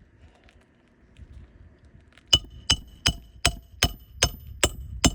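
Hand hammer driving a roofing nail into an asphalt shingle: about eight sharp strikes with a metallic ring, roughly two and a half a second, starting a little over two seconds in.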